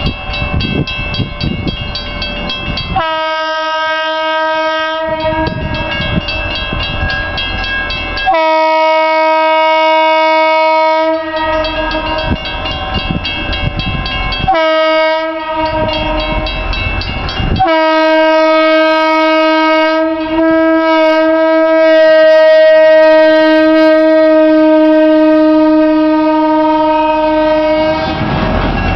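Horn of a Pennsylvania Railroad doodlebug motor car, No. 4662, sounding the grade-crossing signal on one steady note: two long blasts, a short one, then a long blast held about ten seconds as the car reaches and crosses the road. The car's low running rumble fills the gaps between blasts.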